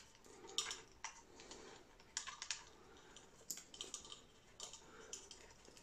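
Faint, irregular small clicks and taps of fingers handling a toggle switch and its nut against the plastic case of a radio-control transmitter, as the nut is started on the switch's thread.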